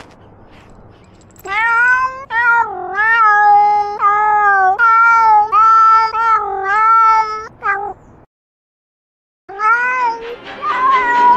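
A domestic cat meowing in a run of long, drawn-out calls, one after another, then a silent gap near the end followed by a few more meows.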